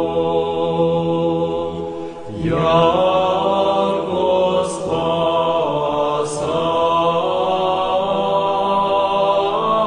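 Slow chanted vocal music: long held sung notes over a steady low drone, the voices sliding to new notes a few times.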